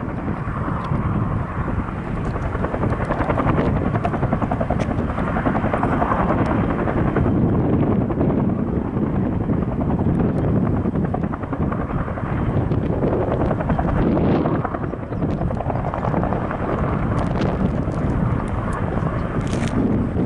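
Firefighting helicopter's rotor blades and turbine engine running, a rapid steady blade beat that swells and eases a little in loudness.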